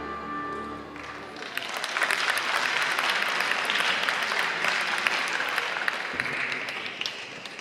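Floor-routine music ends in the first second, then an audience claps and applauds for about six seconds, dying down near the end.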